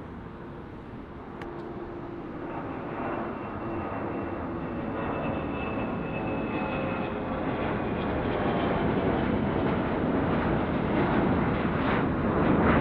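Boeing 717's two rear-mounted Rolls-Royce BR715 turbofans at climb power as the jet climbs out after takeoff, a steady jet roar growing louder throughout, with a few held whining tones over it.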